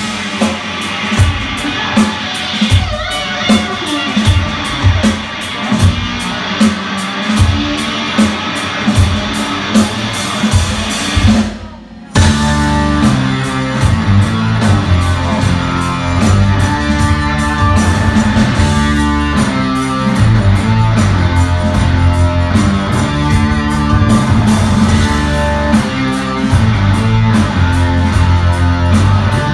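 Live rock band playing loud: drums and electric guitar with heavy beats at first. About twelve seconds in there is a short dip in volume, then the whole band (guitars, bass, drums, keyboard) comes in fuller and louder.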